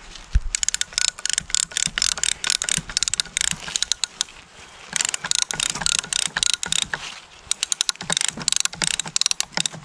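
Hand ratchet strapping tensioner clicking rapidly as it tightens a white strapping band around a log bundle. The clicks come in three runs of lever strokes with short pauses between.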